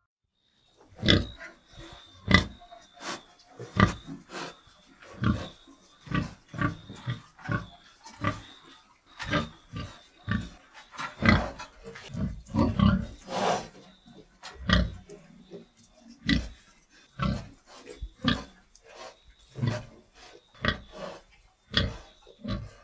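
Domestic pigs, a sow with her piglets, grunting: short low grunts come about once a second, some in quick pairs.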